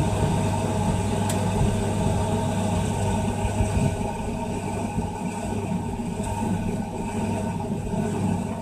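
Scharpf Victoria front-loading washing machine, Merloni-built, running its cottons 80 °C programme with the drum motor turning the laundry fast: a steady hum with a rumble beneath.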